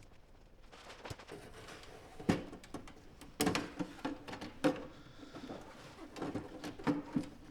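Hands handling and taping the Performa 580CD's brittle plastic case: a run of irregular clicks and knocks, the loudest about two and a half seconds in, with a few short pitched rasps.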